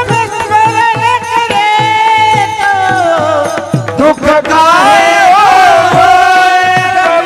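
Warkari bhajan: male voices singing long, drawn-out notes in unison, gliding between pitches, over brass taal hand cymbals clashing in time and a drum keeping a steady beat of about two strokes a second.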